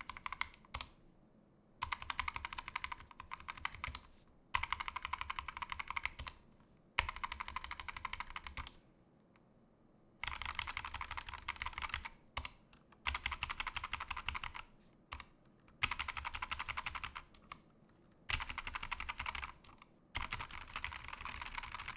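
Fast typing on a Glorious GMMK2 65% mechanical keyboard with pre-lubed 45 g Glorious Fox linear switches, several keys struck together in a key-rollover test. The keystrokes come in runs of about two seconds, with short pauses between.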